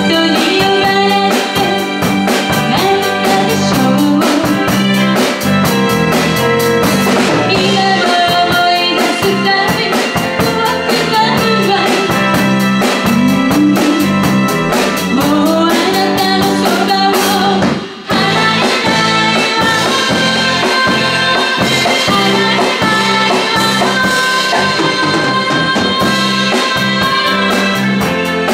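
Live band playing a Japanese pop song: a woman sings the lead over electric guitar, bass guitar, drum kit and keyboard. The music drops out for a split second about two-thirds through.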